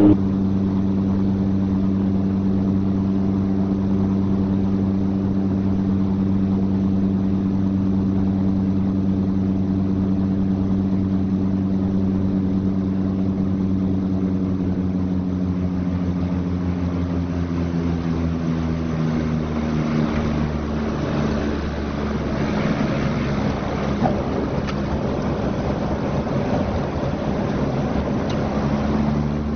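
Let 410's twin turboprop engines droning steadily, heard from inside the cockpit. The drone drops in pitch as power comes off on the landing approach. From about two-thirds of the way through, a rougher, noisier rush takes over as the aircraft comes down onto the road.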